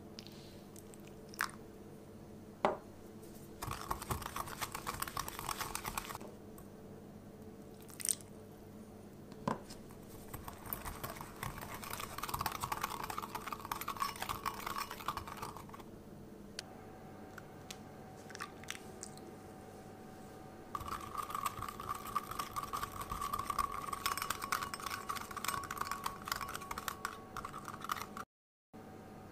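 Wire whisk beating matcha, sugar and hot water in a glass bowl. It gives stretches of rapid clicking and scraping against the glass, several seconds each, with a few single clinks in between.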